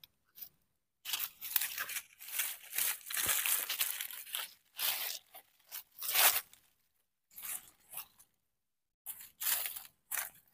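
Dry fallen leaves crunching and rustling in irregular bursts, with short silent gaps between them.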